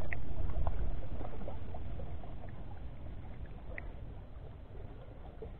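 Low, even rumble of wind on the camera microphone that fades steadily, with a few faint clicks.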